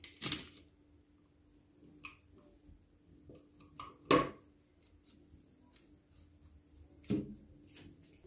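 Handling knocks from a small electric spice grinder: its plastic lid is lifted off and set down on a wooden table. There are a few sharp clacks, the loudest about four seconds in, over a faint steady hum.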